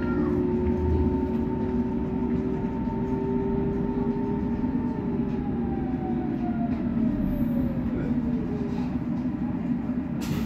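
Berlin S-Bahn class 482 electric train's traction drive whining over the steady rumble of the car as it brakes into a station; the whine falls in pitch in the second half as the train comes to a stop.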